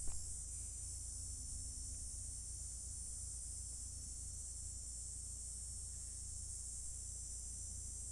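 Steady high-pitched drone of insects, with a low steady hum underneath and one sharp click right at the start.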